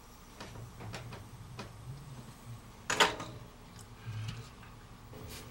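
Light clicks and taps of small plastic CD drive mechanisms and tools being handled, with one sharper clack about three seconds in.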